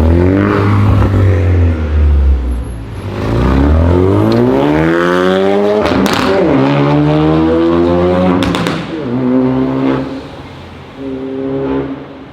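Ford Focus RS with an AWE aftermarket exhaust accelerating hard: the engine note climbs, drops at a gear change about six seconds in and climbs again, with sharp exhaust pops near six and eight and a half seconds. After that it settles to a lower, steadier note and gets quieter.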